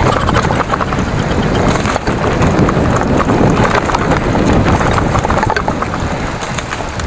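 Mountain bike rolling fast down a rough dirt trail: tyres on dirt and the bike rattling with many small knocks over the bumps, and wind buffeting the microphone.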